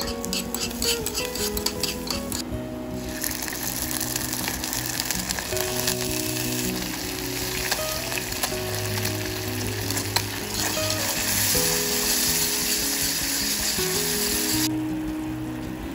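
Clicks of chopsticks stirring minced garlic in a hot ceramic pot. About three seconds in, a loud sizzle starts as the soy-sauce-and-vinegar sauce boils hard in the pot, and it cuts off suddenly near the end. Soft background music plays throughout.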